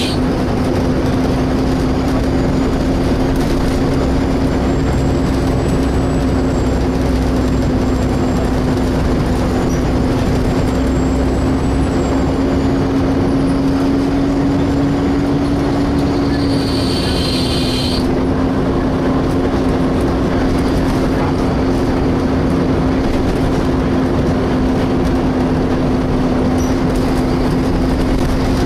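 Volvo B7TL double-decker bus's engine cooling fan giving a loud, steady vacuum-cleaner-like whine, its pitch edging up about halfway through and settling back. Over the bus running, a short high-pitched screech lasting about a second and a half comes about two-thirds of the way through.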